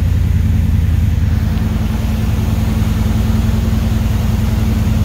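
Small-block GM V8 with headers and dual exhaust idling steadily at an even, unchanging pace.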